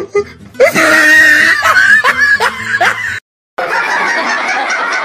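Comedy soundtrack: a high snickering, laughing voice over music, cut off by a short dead silence about three seconds in. A steady, rough noisy sound follows.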